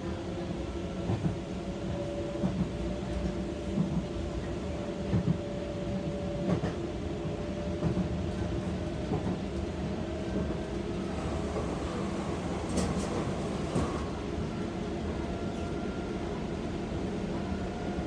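Docklands Light Railway train running, heard from inside the front car: a steady rumble with a thin whine that slowly rises in pitch. Regular clickety-clack from the wheels sounds every second or so.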